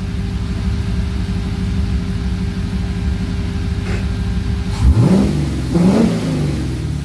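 Carbureted Chevy 6.0 LS V8 running steadily, then revving up sharply twice, about five and six seconds in, before settling back.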